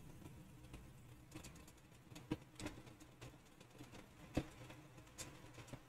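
Near silence: faint room tone with a few faint, short clicks scattered through it, the clearest about halfway through and near the end.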